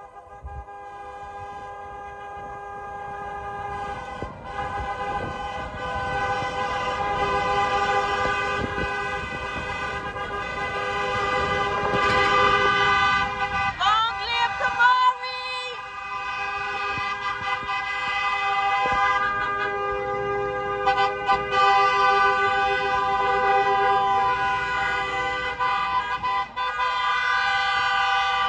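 Car horns held down and sounding together from a line of cars, a steady two-tone horn chord that grows louder over the first dozen seconds.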